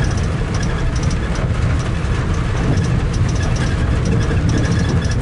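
A car's engine runs steadily as the car wades slowly through deep floodwater on a flooded road, with a low rumble and water noise. Quick clusters of light high ticks recur throughout.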